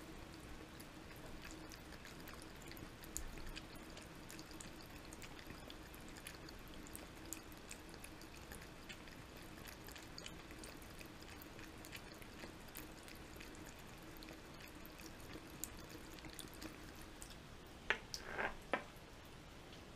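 Thin stream of water trickling from a bathroom sink faucet while a cat laps at it, with faint small ticks throughout over a steady low hum. A few louder knocks come close together near the end.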